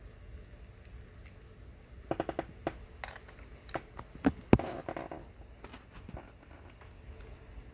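Light clicks and taps of a tablet being handled in its clamp mount as it is switched on: a quick run of clicks about two seconds in, then scattered single clicks and knocks, the loudest about four and a half seconds in.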